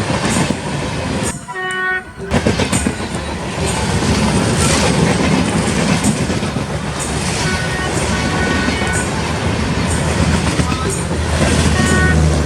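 ALCO WDM3A diesel locomotive hauling a passenger train past: the engine's heavy rumble under the steady noise of the train, with wheels clacking over rail joints and short horn notes.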